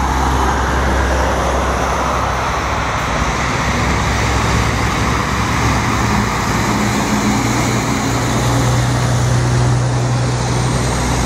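Road traffic with a KAMAZ 53213 truck crane's V8 diesel engine running as it drives past. A steady low engine drone grows stronger about halfway through, over continuous tyre and traffic noise.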